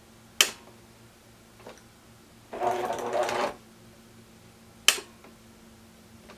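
Electric sewing machine stitching through fabric in one short burst of about a second, with a sharp click before it and another after it.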